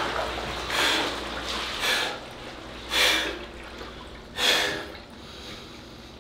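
A man breathing hard in an ice bath, taking several forceful breaths about a second apart: gasping from the shock of the cold water.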